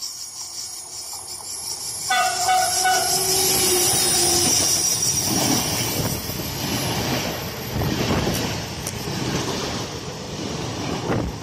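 A passenger train approaching sounds its horn, a chord of several steady notes held for about two and a half seconds starting about two seconds in. It then passes close by, its wheels running loudly over the rails.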